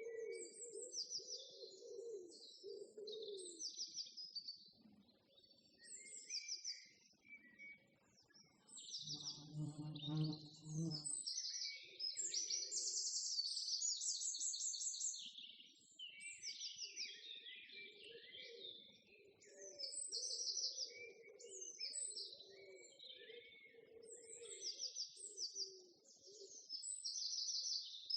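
Small birds chirping and singing in rapid high trills throughout, with a lower, steadier sound underneath in stretches and a brief low-pitched call about ten seconds in.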